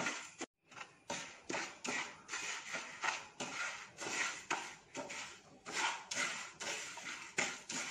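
Wooden spatula stirring dry split moong dal in a nonstick frying pan: a quick series of rustling, scraping strokes, about two or three a second, as the lentils are dry-roasted. The sound briefly drops out about half a second in.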